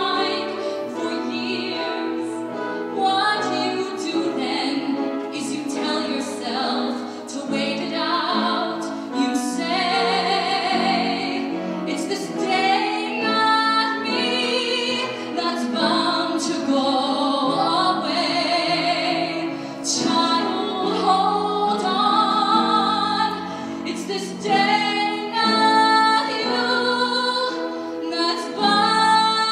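A woman singing a ballad in a trained, operatic style, holding long notes with a wide vibrato over musical accompaniment.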